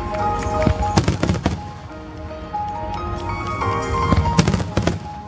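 Aerial fireworks shells bursting: a cluster of sharp bangs about a second in and another near the end. Music with held melodic notes plays throughout.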